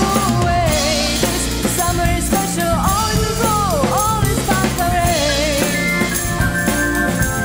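A rock band plays the song: drums, bass guitar and keyboard, with a melody line that slides up and down in pitch.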